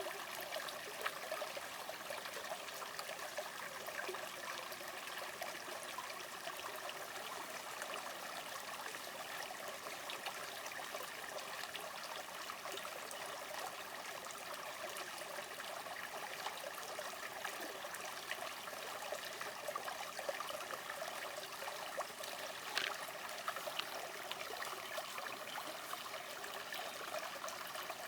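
Natural spring water trickling and flowing steadily, a light splashy burble with small drips and no deep rumble.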